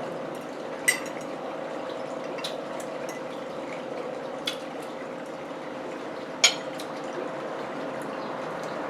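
Steady hiss with a faint hum under it, broken by a few sharp clicks: one about a second in, a smaller one midway, and the loudest about six and a half seconds in.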